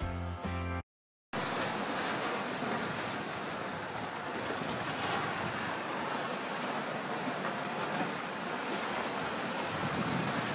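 Rough sea: waves surging and breaking against the shore, with wind on the microphone. It starts after the tail end of a music track and a brief silent gap.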